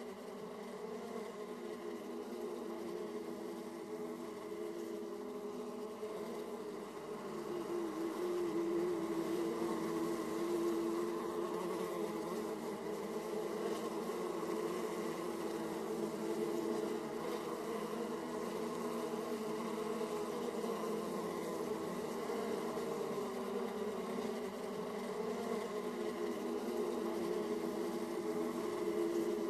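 Honey bees buzzing at a hive entrance, a steady, dense hum of many bees coming and going that swells a little about a quarter of the way in.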